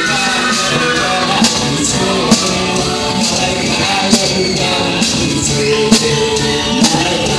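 A man singing into a handheld microphone over loud amplified backing music with a steady drum beat.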